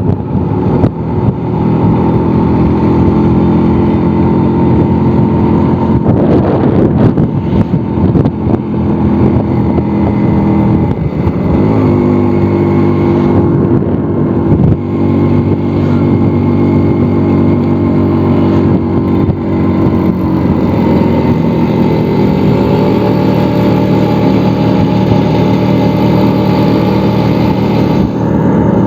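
Vintage Vespa scooter's two-stroke single-cylinder engine running under way, its note shifting about a third of the way in and rising again about two thirds of the way through as the rider changes speed.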